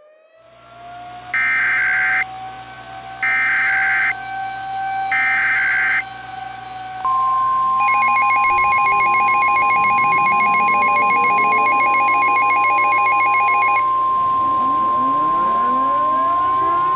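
Emergency Alert System broadcast tones. A siren winds up and holds; then come three bursts of the screechy SAME digital header data. About seven seconds in, the steady 1050 Hz NOAA Weather Radio warning tone starts, and the harsher EAS two-tone attention signal sounds over it for about six seconds, with siren wails sweeping underneath.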